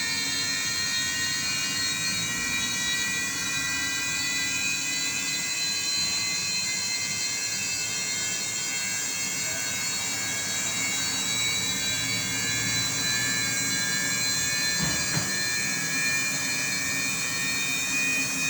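Samsung WW90K5410UX front-loading washing machine running, its digital inverter motor turning the drum with a steady whine made of several high tones over a low hum.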